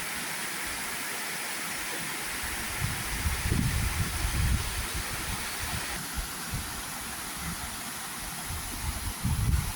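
Waterfall's steady rush of falling water. Irregular low rumbles come in about three seconds in and again near the end.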